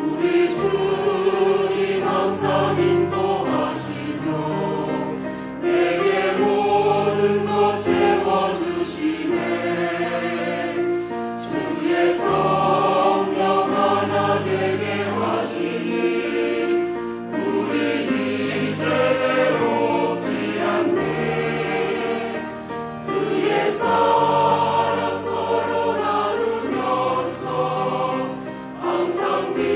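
Mixed-voice church choir of men and women singing a hymn together, in sustained phrases over a steady low part.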